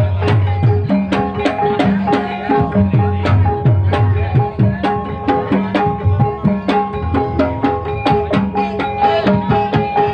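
Live Banyumasan gamelan playing for an ebeg trance dance. A kendang barrel drum is beaten in a fast pattern, its low strokes dropping in pitch, over ringing bonang kettle-gong notes.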